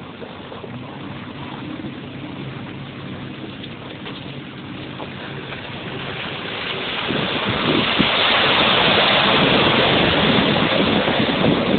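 Daihatsu Fourtrak 4x4's engine running steadily, then its tyres churning and splashing through muddy water, a loud rough rush that builds from about seven seconds in.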